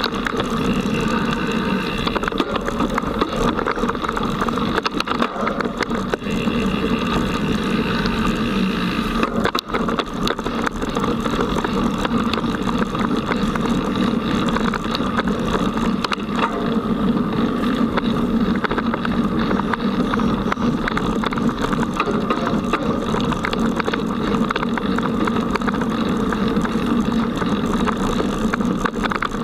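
Child's mountain bike ridden fast over a forest dirt trail, heard from a camera carried on the bike or rider: a steady rattling rumble of tyres, frame and mount over the rough ground.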